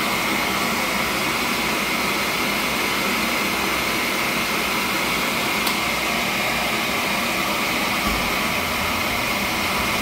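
Beckett commercial gas burner's combustion-air blower running steadily through the pre-ignition purge: an even rushing hum with a thin, steady high whine.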